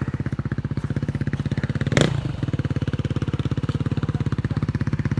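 Enduro motorcycle engine idling close by with a fast, even beat. A single sharp knock sounds about two seconds in.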